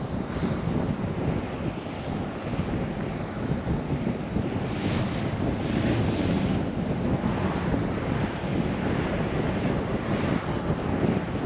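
Steady road and wind noise of a car driving, with wind rumbling on the microphone.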